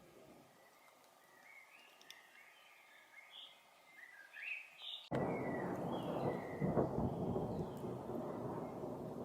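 A small bird chirping in short calls, then about five seconds in a loud rumble of thunder starts suddenly and rolls on, peaking a couple of seconds later, with the bird still calling over it.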